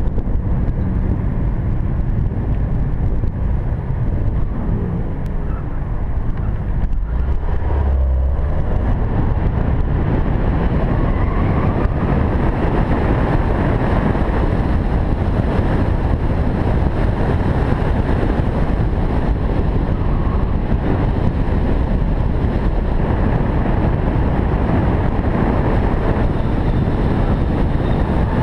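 VW GTI Mk6's turbocharged 2.0-litre four-cylinder engine idling, then launching about eight seconds in and accelerating hard through an autocross run, with heavy noise continuing to the end.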